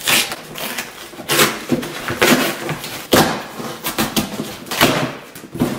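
A sealed cardboard shipping box being torn open by hand: several short rips and scrapes of tape and cardboard as the flaps are pulled apart.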